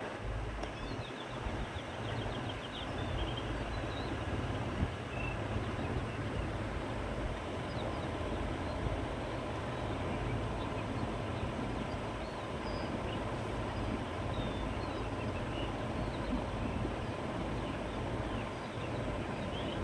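Wind blowing steadily across an open meadow, with a low rumble, while small birds chirp here and there.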